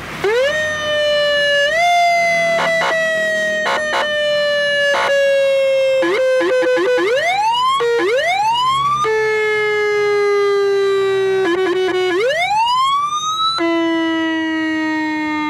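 Motorcycle-mounted multi-tone electronic police siren switching between its tones: upward whoops, long slowly falling wails and quick bursts of short chirps, with the pattern changing every few seconds.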